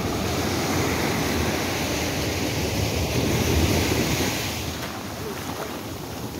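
Sea surf washing up a sandy beach: a wave rushes in over the sand, swelling to its loudest about three and a half seconds in and then easing off.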